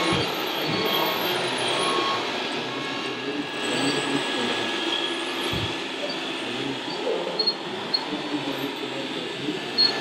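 Radio-controlled scale model Fendt tractor driving slowly over gravel, pulling a tipper trailer, against the steady background din of a busy hall, with a couple of dull thumps.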